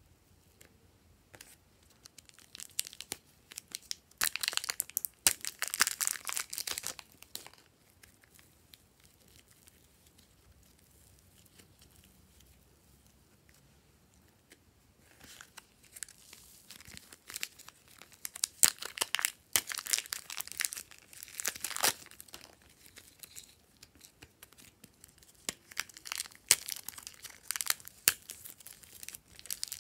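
Soft clay and glossy slime squeezed and pulled apart by hand, giving sticky crackling and tearing sounds in bursts. It is quiet for several seconds in the middle, then starts again.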